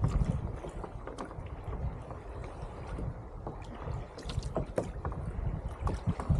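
Small splashes and knocks of water against a fishing kayak on calm sea, scattered irregularly over a low rumble.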